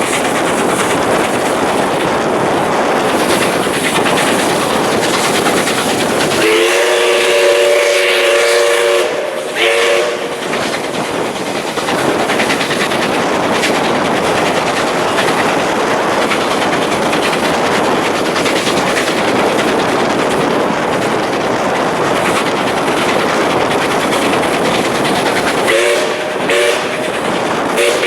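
Steam train running with a steady rush of noise, and its whistle sounding a multi-note chord twice: a long blast about seven seconds in and a shorter one near the end.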